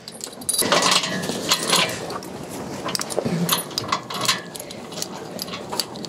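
Metal tether chain and snap clip clinking and rattling in quick irregular clicks as a cow is chained up by its neck collar in its stall.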